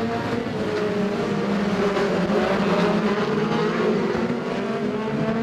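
A pack of BriSCA oval-racing stock cars with their engines running together as a loud, steady drone of several engine notes. The pitch slowly sinks over the first few seconds and then climbs again as the cars accelerate.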